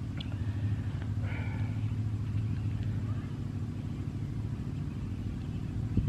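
A steady low rumble, with a faint click near the end.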